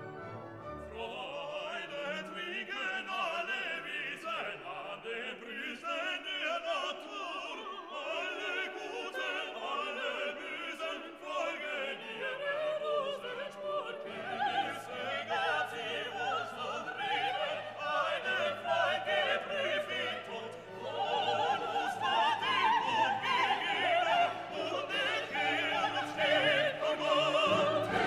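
Background classical music: an orchestra with operatic singing, growing louder about two-thirds of the way through.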